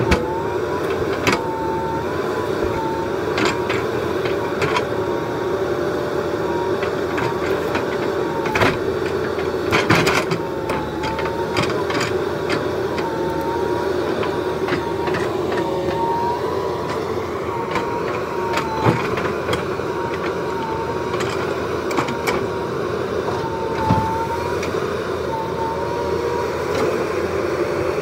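JCB 3DX Super backhoe loader running under load as its backhoe arm works a big log: a steady diesel engine note with a hydraulic whine that wavers up and down in pitch as the arm moves. A few sharp knocks of the bucket against the log come through along the way.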